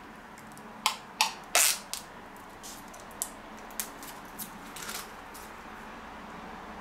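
Protective plastic film being peeled off a new graphics card. A few sharp crackling rips come in the first two seconds, the longest about a second and a half in, and fainter crinkles are scattered after them.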